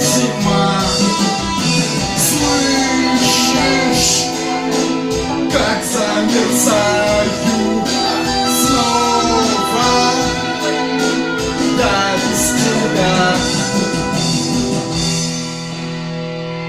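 Music: the closing section of a slow song, with no words sung, a melody line over sustained chords and a steady beat, easing off slightly near the end.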